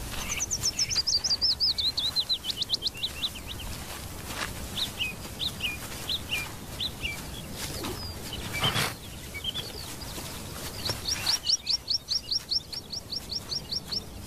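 A small songbird singing: a long run of rapid high notes that falls steadily in pitch, then a few scattered chirps, then a fast, even series of repeated high notes near the end. A single short thump comes about two-thirds of the way through.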